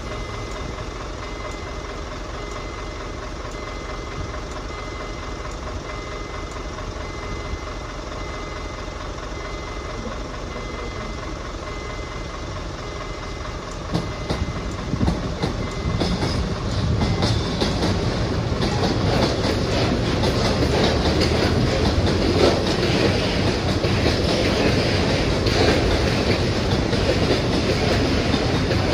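Freight train rumbling past a railway crossing. It grows louder about halfway through, then its wagon wheels clack rhythmically over the rail joints.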